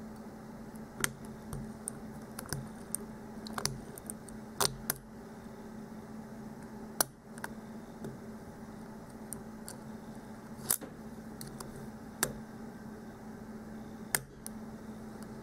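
Light metallic clicks and ticks of a hook pick and tension wrench working the pins of a security-pinned challenge lock during single-pin picking. The clicks come irregularly, a dozen or so, some as pins give a click as they set, over a faint steady hum.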